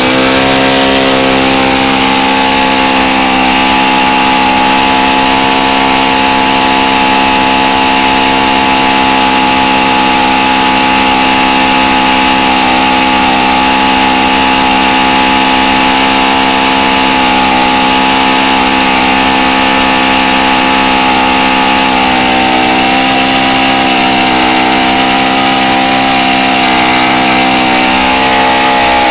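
Enya 90 four-stroke glow-fuel model airplane engine, running unmuffled and turning a 14x8 propeller at a steady, high speed. Its pitch creeps up slightly in the last third.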